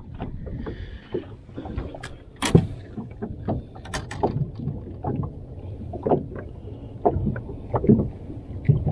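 Handling noise on a fishing boat: irregular knocks and taps of different loudness over a low rumble, while a small smallmouth bass is handled before release.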